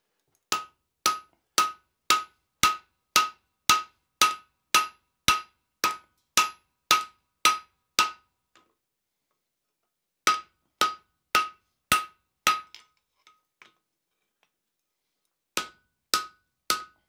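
Hand hammer striking a steel drift to open the eye of a hot tomahawk head: a run of about fifteen sharp, ringing blows at roughly two a second, then after a pause five more, two light taps, and three more near the end.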